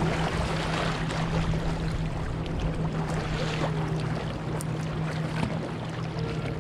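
Water lapping and sloshing against a kayak's bow as it moves, with small splashes and drips from paddle strokes. A steady low hum runs underneath.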